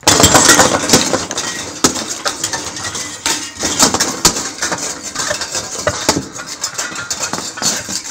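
Foley effect of loose metal scraps and debris handled with gloved hands: a dense run of clattering, clinking and crunching with many sharp metallic hits, starting suddenly and loudest in the first second.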